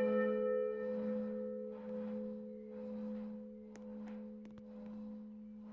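Church bell (bell 1 of the Wichernkirche) ringing on after a stroke: its low hum tone and a higher partial hold steady while slowly fading away, with no new stroke. A few faint clicks come in the second half.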